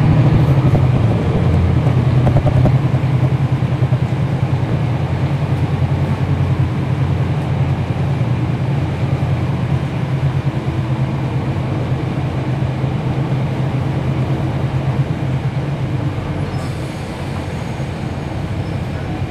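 Cummins ISL9 inline-six diesel engine of a NABI 40-SFW transit bus running under way, heard from inside the bus as a steady low drone. It eases off and grows a little quieter over the last few seconds.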